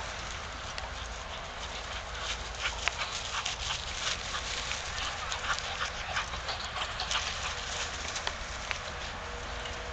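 Dogs running hard through grass: a quick, irregular patter of paws and rustling of the grass, over a steady rumble of wind on the microphone.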